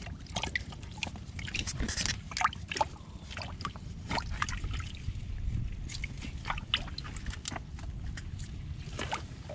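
A stick jabbing and stirring in a water-filled mud crab burrow in mangrove mud: repeated small sloshes and splashes of muddy water, broken by short sharp clicks.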